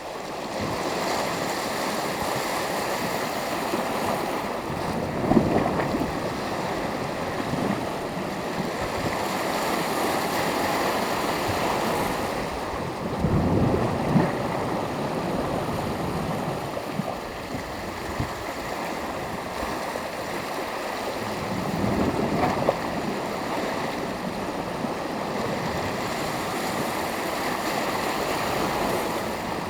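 Sea surf washing steadily onto the shore, with a louder wave breaking about every eight or nine seconds.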